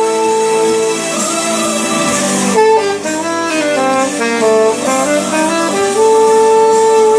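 Alto saxophone playing a slow melody: a long held note, then a phrase of shorter notes stepping up and down in the middle, and another long held note near the end.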